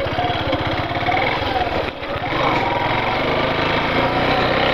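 Yamaha Factor 150's single-cylinder four-stroke engine running at low speed as the motorcycle rolls slowly, its pitch rising and falling a couple of times.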